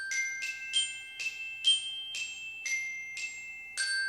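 A short intro jingle of bright, bell-like struck notes: about nine notes roughly half a second apart, each ringing on, with the last one left to ring out.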